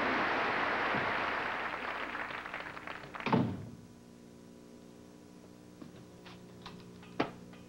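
A steady outdoor hiss fades and is cut off about three seconds in by a door shutting with a loud thud. Then comes a quiet room with a low hum, a few light clicks and one sharp knock near the end.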